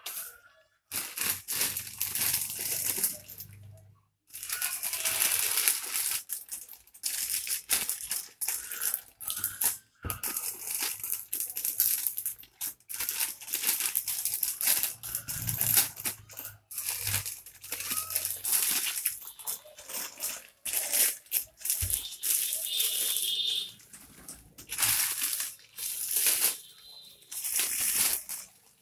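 A plastic courier mailer and bubble wrap crinkling and tearing as they are cut open and pulled apart by hand, in irregular bursts with short pauses.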